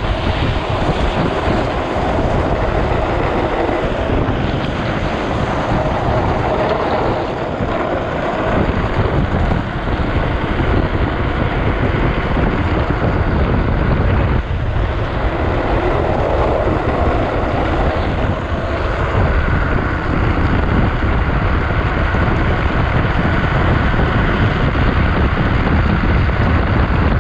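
Steady rush of wind buffeting a GoPro microphone on a drift trike speeding downhill, mixed with the hiss of its wheels sliding on wet asphalt. The noise dips briefly about halfway through.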